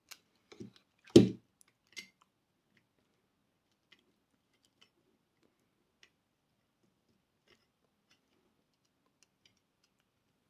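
Handling noises from hand wiring at a screw terminal: a few light clicks, a sharp knock about a second in and another click near two seconds, then faint scattered ticks.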